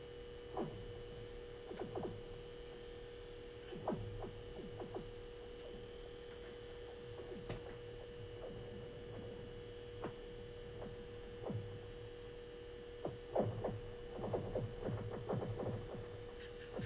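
Steady electrical hum under scattered light clicks and ticks from an ice-fishing rod and reel being worked as a hooked fish is brought up the hole. The clicks come thick and fast in the last few seconds.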